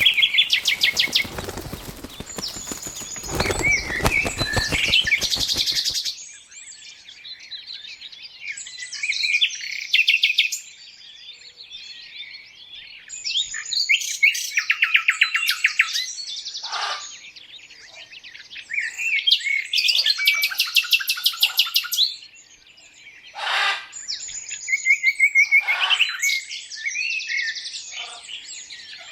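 Birds chirping and singing: repeated short calls and rapid trills, high-pitched, in bursts with short gaps. For about the first six seconds a rustling noise runs beneath the calls and then stops abruptly.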